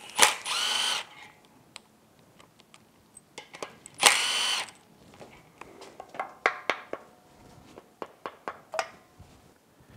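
Cordless impact driver run in two short bursts, about four seconds apart, backing bolts out of the oil fill neck on an outboard powerhead. Between and after the bursts come scattered light metal clicks and taps as the socket and parts are handled.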